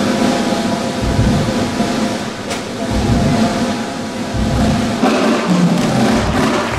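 Music with held tones and deep drum hits.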